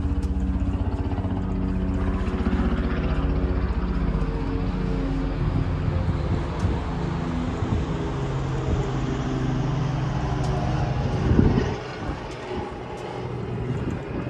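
A steady, low, engine-like drone holding several pitches at once, with a hiss above it. It swells to a brief peak about eleven seconds in, then drops away to a fainter hum.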